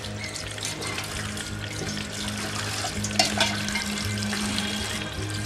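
Water splashing and sloshing in a steel bowl as pieces of cut koi fish are rubbed and washed by hand, with small clicks and knocks against the bowl.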